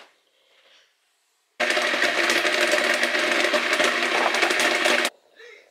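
A small electric kitchen appliance motor runs steadily with a hum for about three and a half seconds, starting and stopping abruptly.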